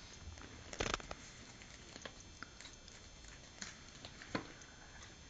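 Faint, scattered taps and scuffles of a six-month-old kitten pawing and pouncing at a feather, with a few sharper clicks about a second in and again past the four-second mark.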